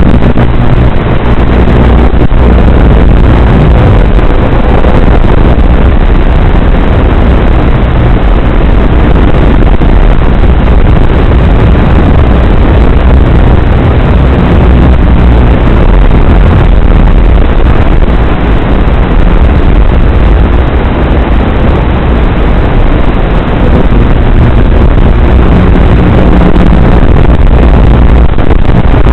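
Loud, steady buzzing hiss on a small indoor FPV quadcopter's flight recording, changing little throughout.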